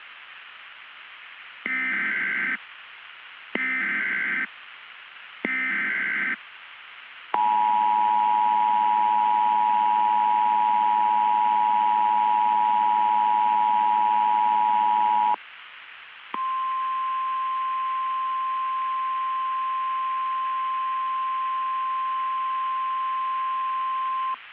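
Emergency Alert System tones over a steady hiss of static. First come three short warbling data bursts, the SAME header, about two seconds apart. Then the two-tone attention signal holds for about eight seconds, and after a one-second gap a single steady tone, the 1050 Hz weather-radio alarm, sounds for about eight seconds, marking the start of an emergency broadcast.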